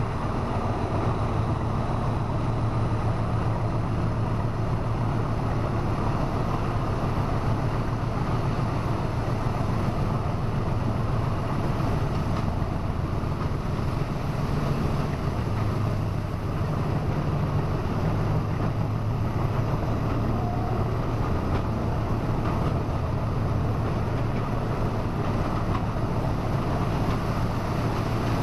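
Class 40 diesel locomotive D335's English Electric 16SVT engine throbbing at full power, a steady deep drone mixed with wheel-on-rail noise, echoing inside a brick railway tunnel. The recording is pushed to its limit and overloaded by the loudness.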